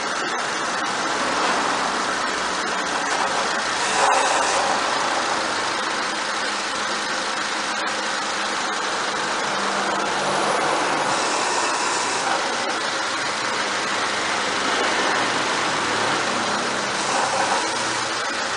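2001 Honda Civic engine idling while the steering is turned from side to side, the power steering pump pushing fresh fluid through the steering rack and lines; a hiss swells a few times over the steady engine sound.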